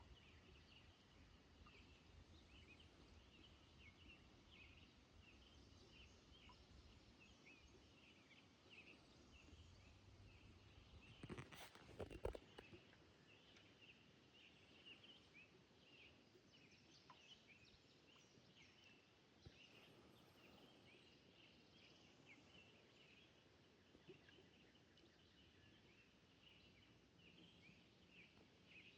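Faint riverside ambience: a steady chorus of short, high chirps, with one louder, brief rattling call about eleven seconds in.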